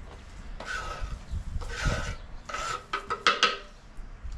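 Rasping scrapes of a utensil working food in the kitchen: about four strokes roughly a second apart, with a few light clicks near the end.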